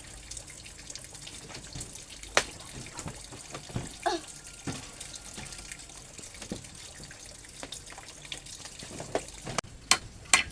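Water trickling and splashing, with scattered clicks, knocks and drips that grow louder and more frequent near the end.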